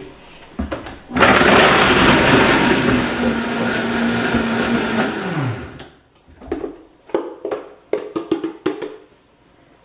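Vitamix blender grinding dry toasted bread into breadcrumbs: a steady, loud whir for about four seconds, its pitch falling as the motor winds down. A few knocks and clicks follow as the jar and its lid are handled.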